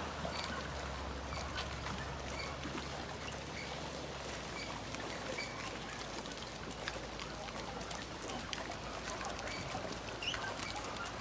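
Small waves lapping and trickling against moored motorboats and a wooden dock, with many small splashes and ticks. The low steady hum of a distant motorboat's engine stops about four seconds in.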